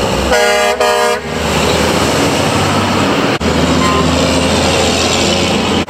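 A semi truck's air horn blasts twice in quick succession about half a second in. The big rig's engine and road noise then rush past loudly.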